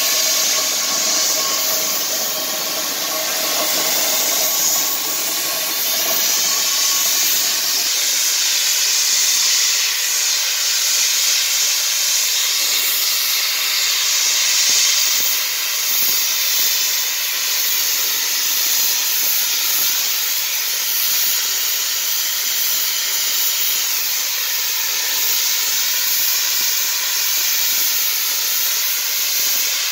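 Steady hiss of steam from Shay geared steam locomotives standing with steam up. For the first seven seconds or so a faint steady tone sits under the hiss.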